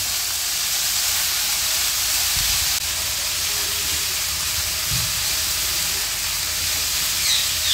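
Shredded cabbage, carrot and onion sizzling in oil in a nonstick wok, a steady hiss, while a spatula stirs them.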